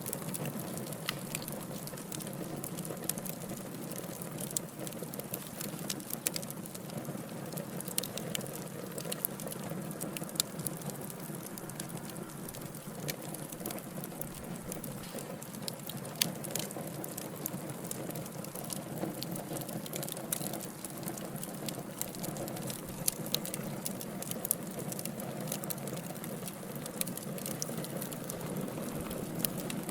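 Burning logs in a wood fire crackling: a steady low rush of flame with frequent sharp pops and snaps at irregular intervals.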